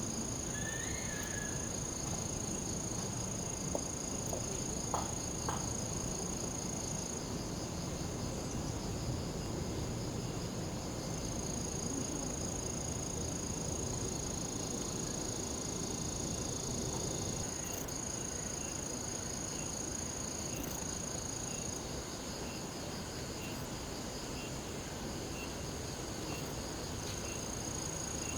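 Cicadas singing: a steady, high-pitched drone that drops out for a few seconds about seven seconds in and then resumes.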